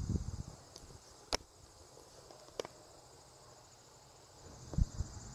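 Crickets chirring in a steady, high, continuous trill from the long grass. Two sharp clicks come about a second and two and a half seconds in, and low thumps at the start and near the end are louder than the insects.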